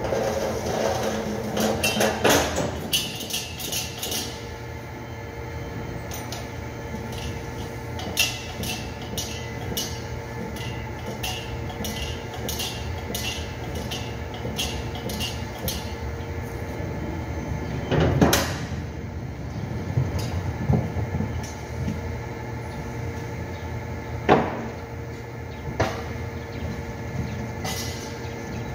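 Steady factory machinery hum with clattering from a manual pallet jack being wheeled and worked: irregular sharp clicks through the first half, and loud metal knocks about two thirds of the way in and again a few seconds later.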